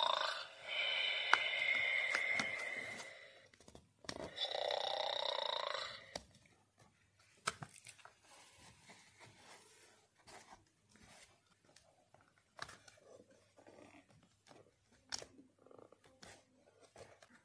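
A children's sound book's small electronic speaker plays a recorded snoring sound, about three snores over the first six seconds. After that come faint handling noises from the board books: rustles, light taps and a few sharp clicks as they are moved and a button is pressed.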